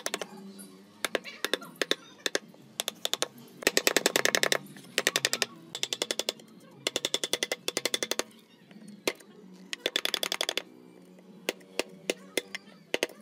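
Wood chisel chopping into a pine board to cut out a notch: bursts of quick, sharp strikes, about ten a second, with short pauses between bursts.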